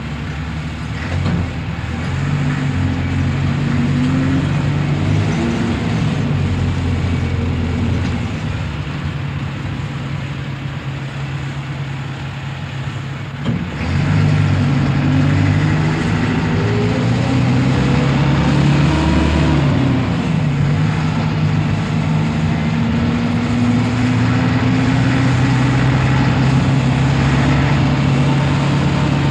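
2-ton diesel truck engine heard from inside the cab, running steadily. Its pitch rises and drops back several times, and about halfway through it suddenly gets louder and stays louder.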